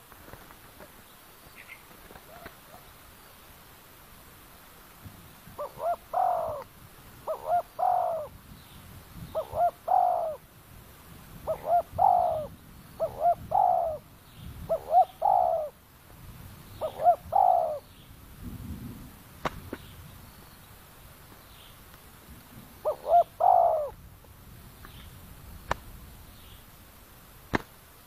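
Spotted dove (tekukur) cooing: about eight short two-note coo phrases, roughly one every one and a half seconds from about 6 to 18 seconds in, then one more near 23 seconds. A few sharp clicks come near the end.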